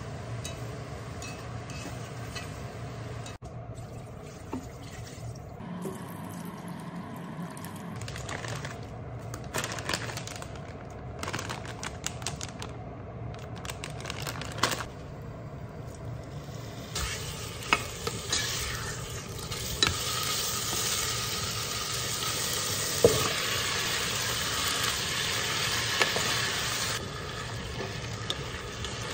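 Home cooking sounds: a spatula stirring vegetables in a pot, with scattered knocks of the utensil against the pot. From a little past halfway, a steady sizzle of chicken and vegetables frying in a pot for about ten seconds, with a few sharp spatula knocks, ending abruptly.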